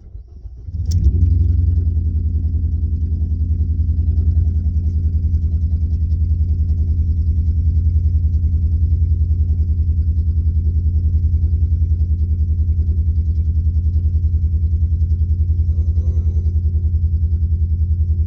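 Car engine starting just under a second in, then running at a fast idle with an even pulsing beat. It still runs rough: the coil wiring to the misfiring cylinder has been reconnected wrongly, with two wires swapped, and the misfire is not cured.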